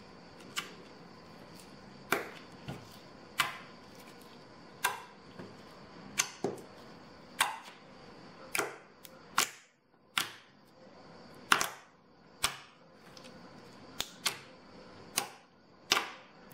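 Clear slime coated in metallic pigment powder being folded and squeezed by hand, giving a series of sharp clicking pops, about one a second, as air pockets trapped in the slime burst.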